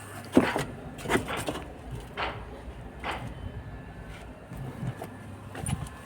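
A series of irregular knocks and clatters, roughly one every half second to second, over a low steady hum.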